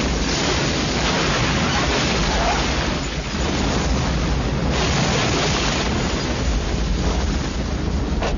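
Film sound of an explosion and the fire after it: a long, dense roar of noise over a deep rumble, swelling about a second in and again about five seconds in.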